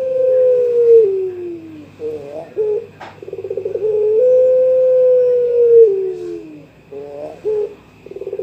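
Young puter pelung (Barbary dove) cooing to call a rival: each call opens with a fast stuttering rattle, then a long held coo that slides down in pitch at its end, followed by a few short broken notes. Two full calls, a third beginning near the end, and one sharp click about three seconds in.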